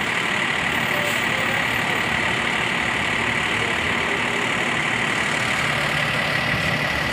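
Bus engines idling, a steady running noise with a steady high-pitched tone over it.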